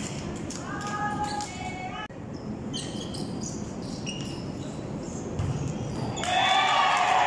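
Volleyball rally on an indoor court: sharp ball hits and short shoe squeaks, then voices shouting loudly near the end.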